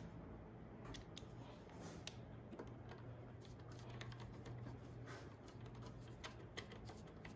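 Faint, scattered clicks and scrapes of a nut driver turning the screws that hold an oil burner's primary control box down, with a faint steady low hum underneath.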